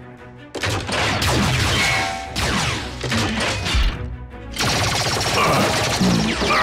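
Rapid volleys of sci-fi blaster fire with hits on metal, over background music. The firing starts about half a second in and breaks off briefly around four seconds.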